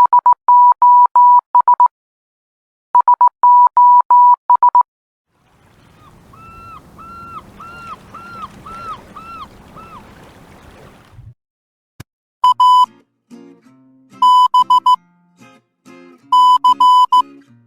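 Morse code sent as a steady beeping tone in short dits and long dahs, the same run of signals played twice. Then a swelling hiss carries a row of about seven short tones that bend up and down, and after it more Morse beeps sound over music with low notes.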